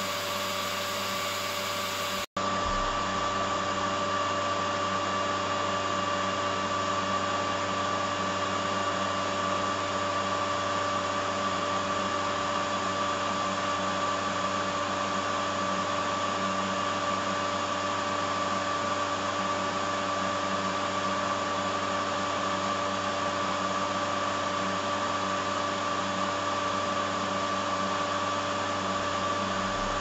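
Steady motor-like drone from running machinery, a whine with a clear high tone over a hum, unchanging throughout. It cuts out for an instant a little over two seconds in.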